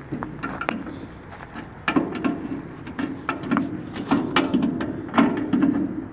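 Adjustable wrench clinking and scraping on the bolts of a rusty steel satellite-dish mount: a run of irregular metallic clicks and knocks, busier from about two seconds in.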